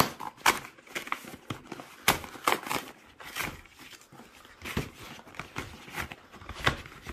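Cardboard camera box being torn open by hand: its seal peeled off and the printed sleeve pulled apart and slid off, with irregular rustling, tearing and sharp crackles.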